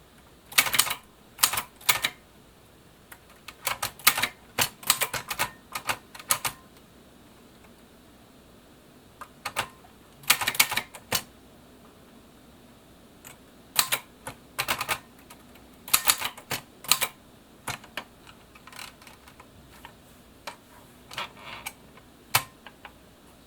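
Kyungbang Clover 950 typewriter keys striking in short irregular runs of clacks, with pauses of a second or more between runs.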